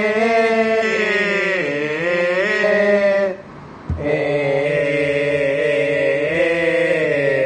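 Thai royal barge chant (he ruea): long drawn-out sung notes with slow glides in pitch. It breaks off briefly a little past three seconds and resumes with a low thump.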